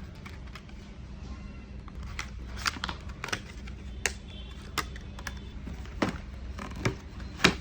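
Scattered sharp clicks and taps at irregular intervals, the loudest one just before the end, over a steady low hum.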